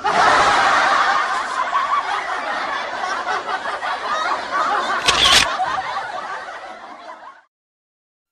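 Several people laughing and snickering at once, a laughter sound effect that fades out about seven seconds in. A single sharp camera-shutter click comes about five seconds in.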